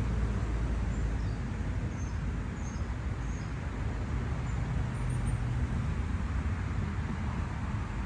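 Steady low rumble of distant road traffic, with a few faint, short, high bird chirps in the first half.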